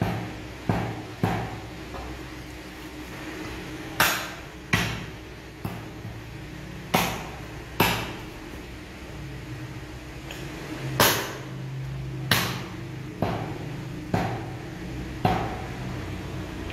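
Butcher's cleaver chopping meat on the bone against a wooden log chopping block: about a dozen sharp chops at irregular intervals, some in quick pairs.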